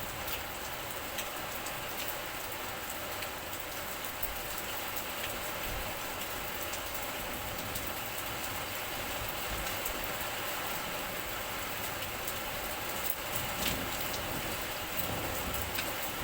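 Steady rain falling, an even hiss with scattered ticks of drops hitting surfaces close by.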